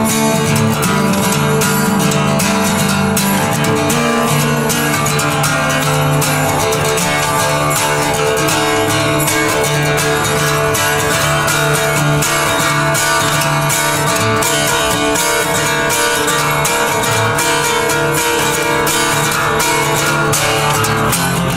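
Acoustic guitar strummed steadily in an instrumental passage of a dark folk song.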